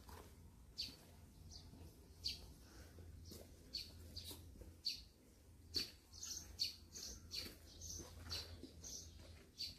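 Small birds chirping, faint: short, high chirps about twice a second, coming more often in the second half.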